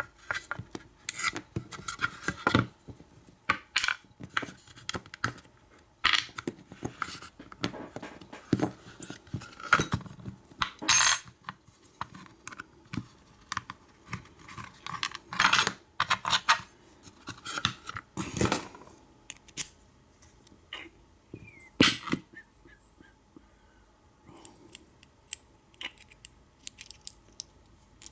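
Small steel parts of an American padlock clicking and clinking as it is handled and taken apart by hand: a run of sharp, irregular metal taps, sparser near the end.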